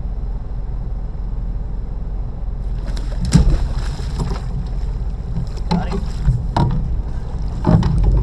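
Electrofishing boat's motor running with a steady low drone. Several short, sharp knocks come through from about three seconds in.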